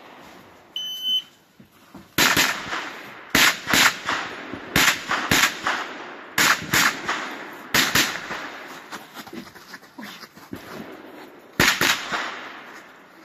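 Electronic shot-timer start beep, then rapid gunfire from a pistol-calibre competition firearm, shots mostly in quick pairs (double taps) with echo after each, about sixteen in all. A pause of a few seconds comes before a last pair near the end.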